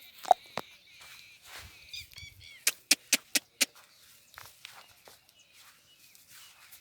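Sharp knocks, two near the start and a quick run of five about three seconds in, with birds chirping faintly.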